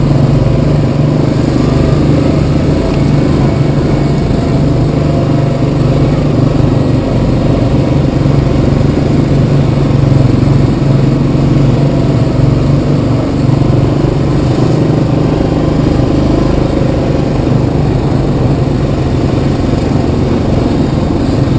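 Yamaha Kodiak 700 ATV's single-cylinder four-stroke engine running steadily at an even pitch.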